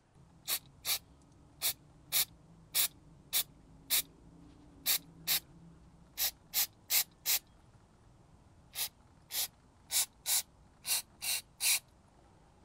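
Aerosol can of CRC mass airflow sensor cleaner giving about twenty short spritzes onto a MAF sensor, each a fraction of a second long, in irregular groups with brief pauses between.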